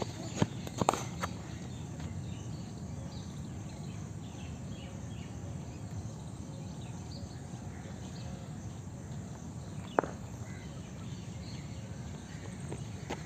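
A few sharp knocks of a cricket ball off bat and concrete in the first second or so, then a steady outdoor background with faint bird chirps and one more sharp click about ten seconds in.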